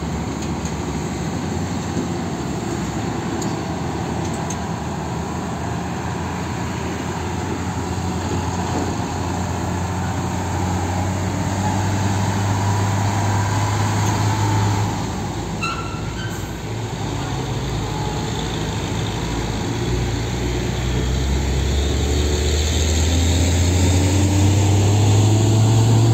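Heavy truck's diesel engine pulling an LPG tanker semi-trailer away under load, its pitch rising as it accelerates. It drops with a gear change about halfway through, then rises again as it picks up speed in the next gear.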